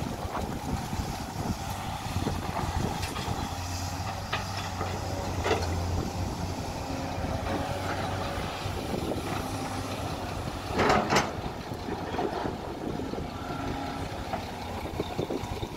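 SANY SY215C hydraulic excavator's diesel engine running steadily while the machine dumps soil into a dump truck, swings back and digs. Short clunks from the bucket and boom, with one loud clatter about two-thirds of the way through.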